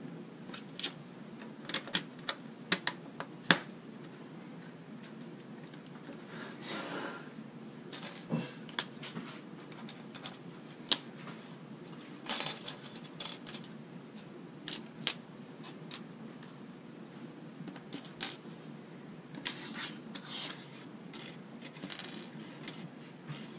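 LEGO bricks clicking and clattering as they are pressed together and picked from a loose pile on a wooden table: irregular sharp clicks, loudest in the first few seconds, with a few short rustles of pieces being shifted.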